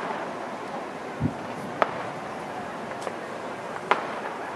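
Sporadic distant fireworks: a few sharp pops spread a second or two apart and one duller low boom, over a steady background hiss.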